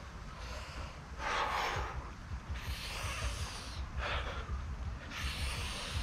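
A man's heavy, forceful breathing from the exertion of a pull-up workout: about five loud breaths, the middle one drawn out.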